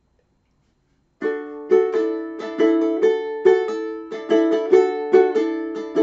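Ukulele strumming chords in a steady repeated pattern, beginning about a second in after a moment of silence.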